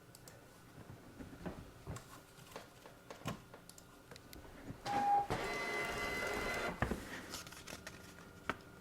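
Zebra GX420t thermal transfer label printer feeding and printing a label: light clicks of handling, a short tone about five seconds in, then the print motor runs steadily for about a second and a half as the label comes out.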